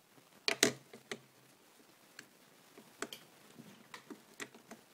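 Irregular small clicks and snaps of a broken iPod's casing being pried apart by hand, the loudest pair about half a second in, with lighter clicks following.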